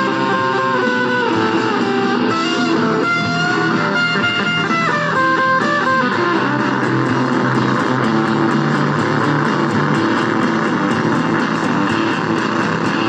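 Background music led by electric guitar. A stepping melody is played for about the first six seconds, then the sound turns into a denser, steady strummed passage over sustained low notes, with a regular ticking beat up high.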